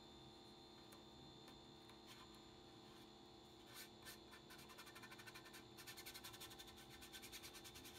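Faint, quick scratchy rubbing of fingertips pressing a vinyl chalk transfer screen down onto a galvanized metal bucket, about five or six strokes a second in the second half, over a steady electrical hum.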